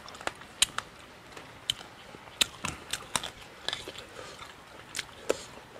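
A person chewing and crunching mouthfuls of frog, with irregular sharp crackles and clicks.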